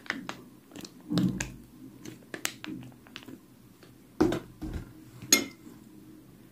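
Scattered light clicks and soft knocks of hands handling kitchen things at a table, with a few louder knocks about a second in, just past four seconds and just past five seconds.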